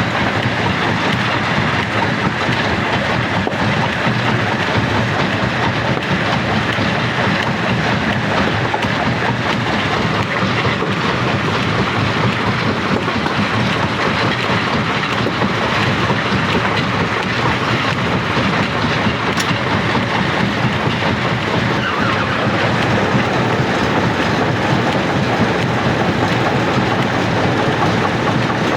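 Rock crusher running, a steady, unbroken rattle and grinding of stone being broken up.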